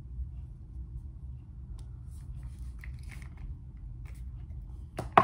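Faint clicks and light rustling from handling a small plastic jar of clay cleansing beads, over a steady low hum, with a sharp click about five seconds in as the loudest sound.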